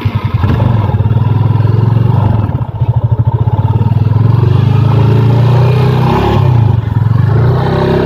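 Yamaha FZ25's 249 cc single-cylinder engine and exhaust under way, accelerating along the road. The note wavers and pulses briefly about two and a half seconds in, then settles and climbs in pitch near the end.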